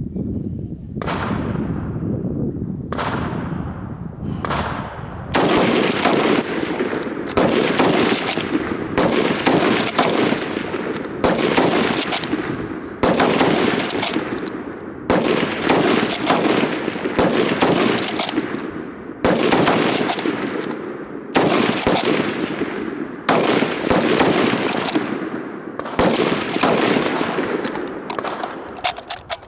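Rapid rifle fire from bolt-action rifles, including a 1919 Lee-Enfield No.1 Mk III SMLE in .303 British, worked as fast as possible. Two shots come in the first few seconds, then a shot about every second, each followed by a long rolling echo.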